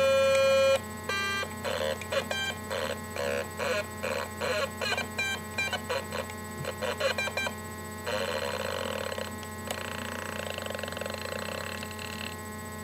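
Homemade Atari Punk Console synth sounding through a tiny speaker salvaged from a musical greeting card: a steady held electronic tone, then from about a second in a run of short stuttering bleeps, and from about eight seconds a warbling tone whose pitch keeps shifting.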